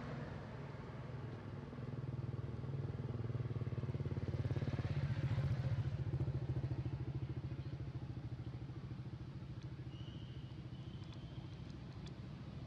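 A motor vehicle's engine running steadily, growing louder to a peak about halfway through and then fading as it passes.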